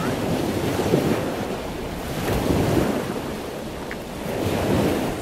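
Wind buffeting the microphone over open water, a rushing noise that swells and fades three times, with water moving.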